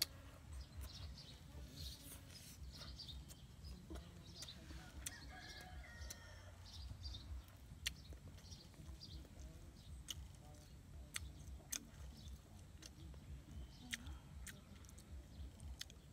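Faint chirps and clucks of birds and chickens, with a warbling call about five seconds in. Scattered sharp clicks and smacks of someone eating crisp fried chicken with his hands run underneath.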